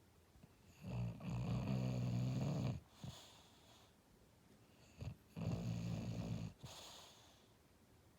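English bulldog snoring in its sleep: two long snores about four seconds apart, the first about two seconds long and the second a little over a second, each followed by a short breathy puff.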